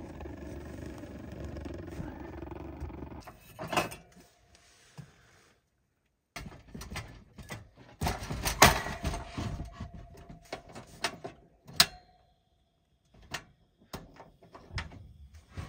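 A low steady hum for the first few seconds, then a run of clicks and knocks from handling things, two of them sharp and loud.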